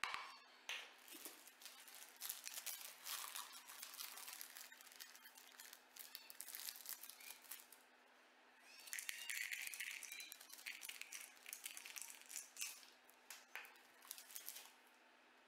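Faint crinkling and rustling of plastic chocolate-chip packets as chips are shaken out of them, first dark chocolate chips and then white chocolate chips. The sound comes in two bouts, the second starting about nine seconds in.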